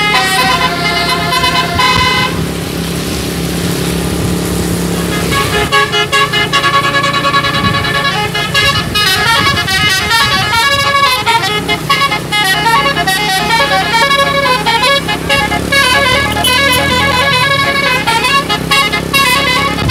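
Bus 'telolet' musical air horn playing quick runs of melody, one note after another. About two seconds in the tune breaks off for roughly four seconds of rushing noise over a low hum, then starts again and plays on busily.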